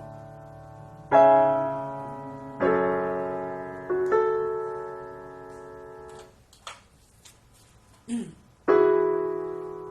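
Roland EP-7 digital piano playing chords, each struck and left to ring and die away. After the third chord there is a pause of about two seconds with faint clicks, and then a new chord is struck near the end.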